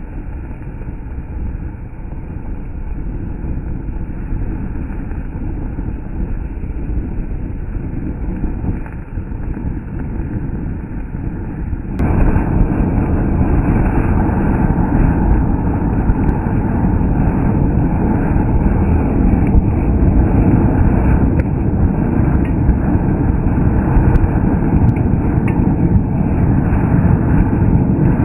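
Diwali anar fountain firecracker burning, a steady rushing hiss of spraying sparks that gets suddenly louder about twelve seconds in as the fountain flares up.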